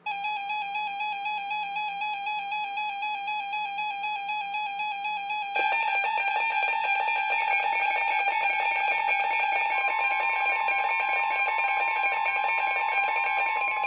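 Several weather radios' alert alarms going off together for a flash flood warning: a pulsing, warbling electronic alarm starts abruptly, and a second alarm joins at about five and a half seconds in, making it louder. Near ten seconds in, a steady single-pitched warning tone from the NOAA Weather Radio broadcast comes in over the alarms.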